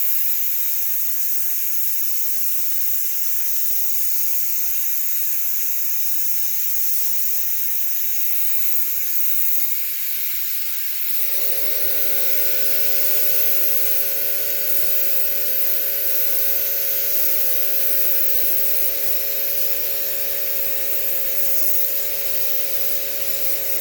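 Compressed air hissing loudly and steadily into a tire through a valve stem with its core removed, inflating it to seat the new stem in the rim. About halfway through, a steady machine hum joins the hiss.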